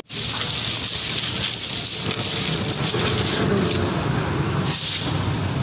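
Steady roadside traffic noise with indistinct voices in the background.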